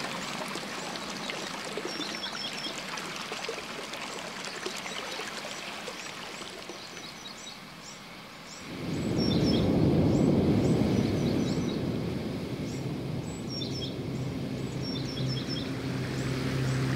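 Small birds chirping in short repeated calls over a steady rush of running water. About nine seconds in, the water grows much louder and fuller, like a spout gushing into a pool.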